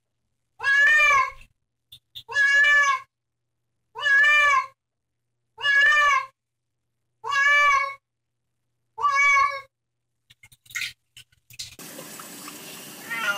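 A domestic cat meowing six times, long drawn-out meows at an even pace of about one every second and a half. Near the end, tap water runs steadily over a kitten, which gives one falling mew.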